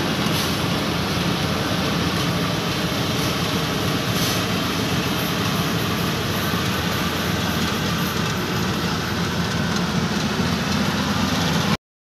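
Yanmar YH850 combine harvester running steadily while harvesting rice: a continuous diesel engine hum mixed with the noise of its cutting and threshing machinery. The sound cuts off abruptly near the end.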